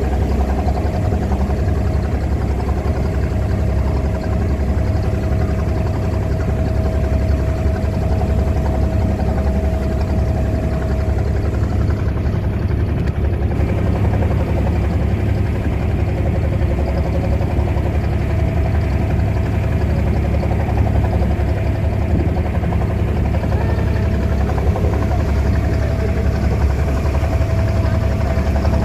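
Loud, steady low rumble of an engine running continuously, with a faint steady whine above it.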